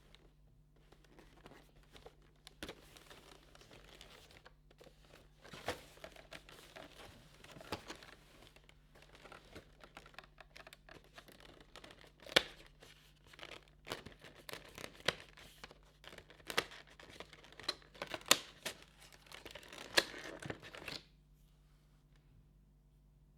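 Cardboard and plastic packaging of a makeup advent calendar being torn open and crinkled by hand, with a string of sharp snaps and clicks. It stops about two seconds before the end.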